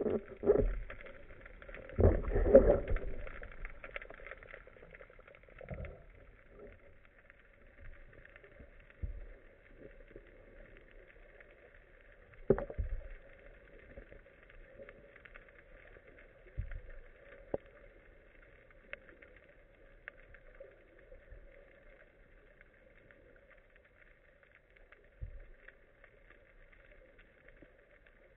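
Underwater sound picked up through a waterproof camera housing: a steady faint hum with scattered muffled thumps and knocks, the loudest cluster a couple of seconds in and a sharp knock near the middle.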